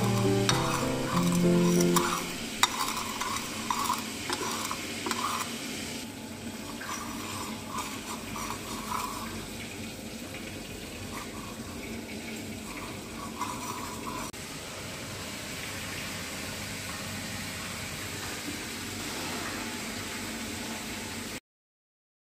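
A spoon stirring and clinking against a ceramic bowl of sauce over a steady hiss, with background music during the first two seconds. The sound cuts off suddenly near the end.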